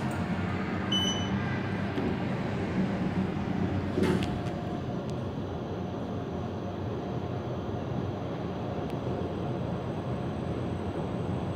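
Kone machine-room-less elevator: a short beep about a second in after a car button is pressed, a knock about four seconds in as the doors close, then the car's steady hum and rumble as it travels up one floor.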